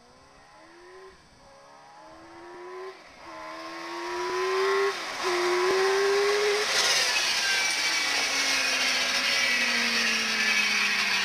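Edge Barracuda mini sand rail's Suzuki GSX-R750 inline-four motorcycle engine accelerating hard, its pitch climbing and dropping back at each of four upshifts as it comes closer and louder. About seven seconds in it passes close with a rush of noise, and its pitch then falls slowly as it moves away.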